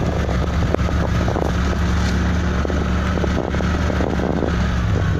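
Vehicle running steadily: a low engine drone with road and wind noise.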